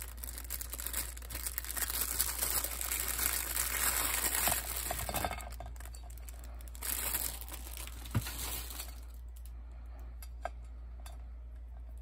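Thin clear plastic bag crinkling as it is handled and pulled away from a bunch of small plastic doll heads, dying down about three-quarters of the way through. A couple of light taps follow near the end.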